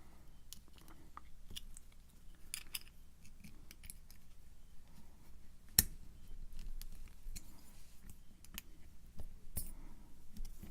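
Small metallic clicks and scrapes of hand tools working on a lock cylinder being taken apart in a vise, with one sharp click about six seconds in.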